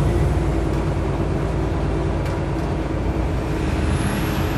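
A single-deck bus's diesel engine and drivetrain running steadily while under way, heard from inside the passenger saloon. A faint high whine rises and falls near the end.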